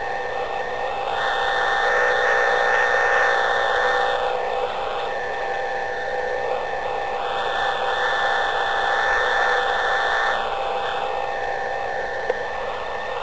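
Radio hiss from a shortwave receiver tuned for Jupiter's radio emission: a band of static that swells and fades slowly over several seconds, with a few faint steady whistle tones underneath.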